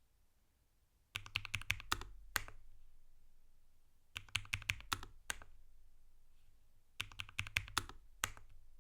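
Typing on a Lofree Flow84 low-profile mechanical keyboard with Kailh Phantom switches: three quick bursts of about eight to ten keystrokes each, a couple of seconds apart, the last key of each burst struck a moment after the rest.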